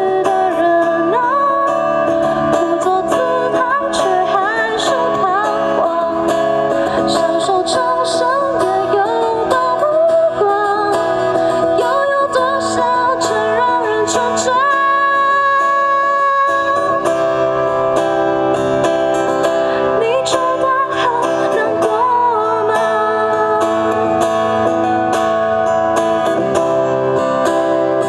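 A live band playing an instrumental passage, with a lead line bending up and down in pitch over guitar and drums, and one long held note about halfway through.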